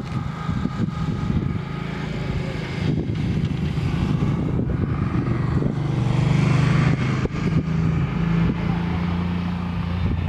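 Low, steady engine hum with wind rumble on the microphone, the hum strongest in the second half.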